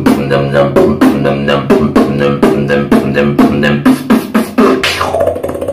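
Human beatboxing a trap-style beat: a fast, even rhythm of mouth-made percussive strokes over a held low bass tone. The bass drops away and the pattern loosens about five seconds in.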